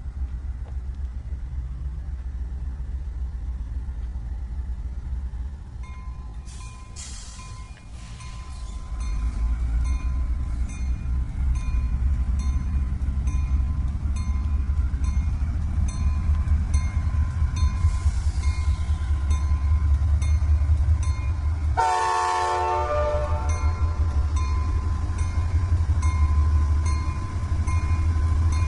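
Diesel locomotive running by with a deep engine rumble that grows louder about a third of the way in, over a steady rhythmic clicking. A short horn blast sounds about three quarters of the way through.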